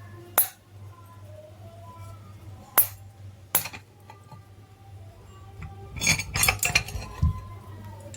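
Metal tools and parts clinking on a workbench: three sharp single clinks spaced a second or two apart, then a burst of clattering about six seconds in. Faint background music and a steady low hum lie underneath.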